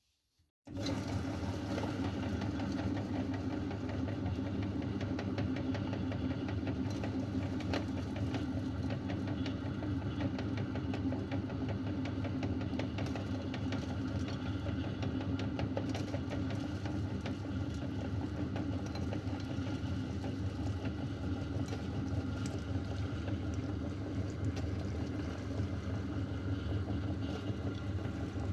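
Electric meat grinder switched on about a second in, then running steadily with a low motor hum and faint intermittent clicks.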